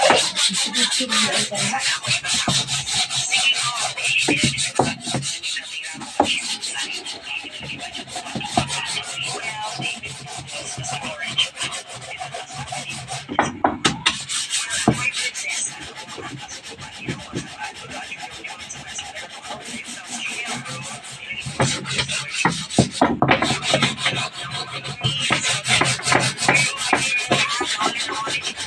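Continuous rapid scraping of a hand tool rasping or sanding wood, with two brief pauses about a third and four fifths of the way through.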